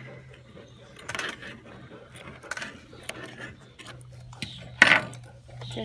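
Small round grooming scissors snipping the hair on a dog's foot, with a metal comb drawn through the fur: a few irregular sharp metallic clicks, the loudest about five seconds in.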